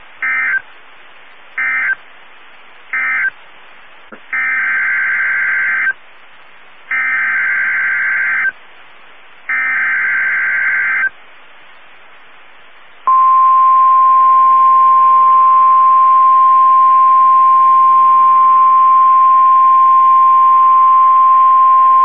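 NOAA Weather Radio alert tones. First come three short buzzing SAME data bursts that mark the end of the previous message, then three longer, warbling SAME header bursts. About halfway through, a single steady high-pitched Warning Alarm Tone begins and holds for about nine seconds, announcing a new severe thunderstorm warning.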